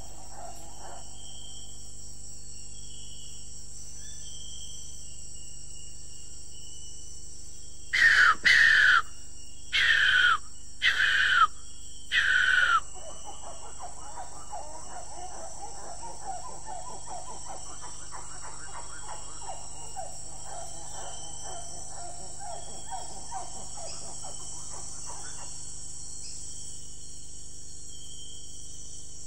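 Tropical rainforest ambience with insects buzzing steadily. About eight seconds in come four loud calls, each falling in pitch, followed by a long, fast, lower chattering trill that fades out.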